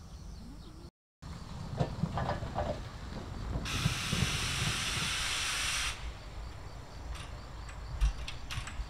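Steam hissing for about two seconds from the cylinder drain cocks of C58 363, a JNR Class C58 steam locomotive, as it blows out condensate. A few short metallic clanks follow near the end.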